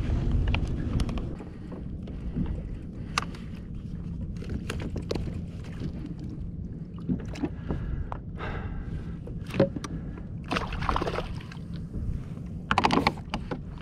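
Water lapping against a plastic fishing kayak, with scattered knocks and clatter of gear on the deck. A couple of louder splashes come near the end as a gaff is dipped in the water.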